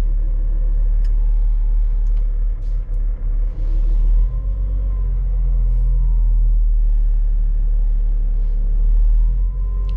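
Volvo L60E wheel loader's diesel engine running, heard from inside the cab as a steady deep rumble, with a faint whine that rises and falls about four seconds in and again near the end.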